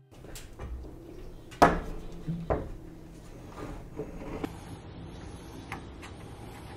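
Knocks and clunks of a heavy wooden hull plank being handled and pressed into place against the boat's frames: a sharp knock about a second and a half in, another about a second later, then lighter taps.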